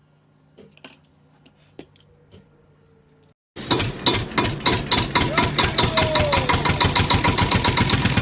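An engine running with a fast, steady chugging of about eight beats a second. It cuts in suddenly after a few seconds of faint taps, and a short falling tone sounds over it midway.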